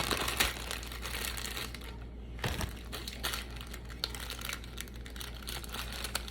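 Plastic test-kit packaging crinkling and rustling as it is handled to get out a swab, with scattered small clicks and taps. Busiest in the first two seconds, then quieter after a brief pause.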